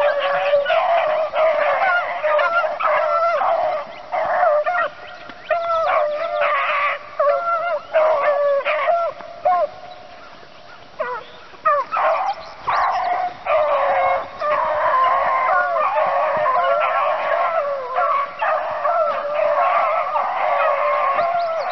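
A pack of beagles baying in chorus as they run a rabbit's track, their voices overlapping; the cry falls off briefly about ten seconds in, then picks up again.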